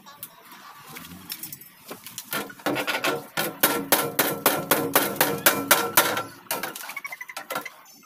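A hammer striking sheet-metal bodywork in a quick run of blows, about four or five a second, each with a metallic ring. The run starts a couple of seconds in and lasts about four seconds.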